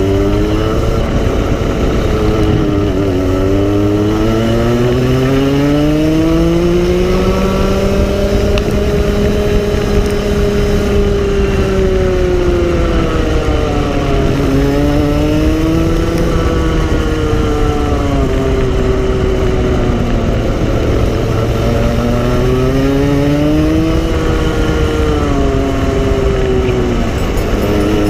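Racing go-kart engine running hard, its pitch climbing for several seconds at a time as the kart gains speed and dropping sharply as it slows for corners, several times over.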